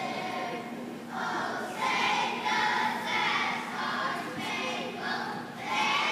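A school chorus singing together, a run of held notes in short phrases that begin about a second in.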